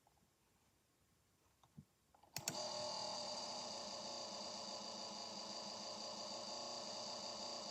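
Near silence broken by a sharp click, then about two and a half seconds in a computer starts a steady grinding drone that holds to the end. The drone is made of many stacked tones, the fault noise the PC keeps making.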